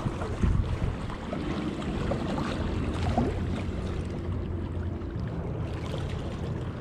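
Steady low rumble of city riverside background noise, with distant traffic and the river's moving water, and a few faint short knocks.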